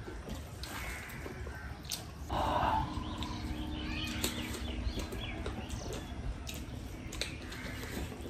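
Two people eating rice and meat curry by hand: fingers squishing and mixing the rice on steel plates, with chewing and mouth clicks, and one brief louder burst of noise about two and a half seconds in.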